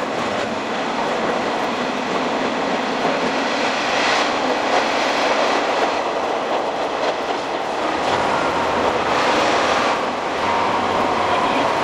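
Running noise of a Kanto Railway Joso Line diesel railcar, played back reversed and sped up six times: a dense, steady rushing rumble.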